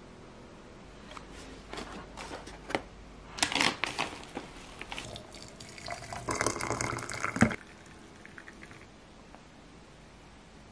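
Water poured from a kettle into a glazed ceramic teapot, a steady splashing fill for about a second and a half that ends with a clunk. A few clinks and knocks of kitchenware come before it.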